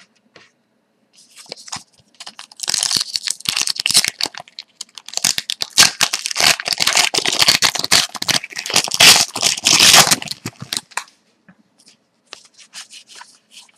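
Foil wrapper of a Score hockey card pack being torn open and crinkled: a long run of crackling rips from about a second in to about eleven seconds, then a few softer crinkles near the end.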